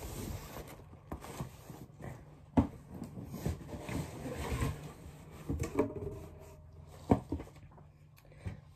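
A cardboard subscription box and its packed contents being handled, with rustling and light knocks. Two sharp thumps stand out, one about two and a half seconds in and one about seven seconds in.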